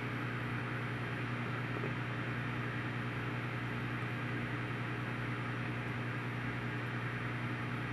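Running aquarium equipment: a steady electric hum over an even hiss.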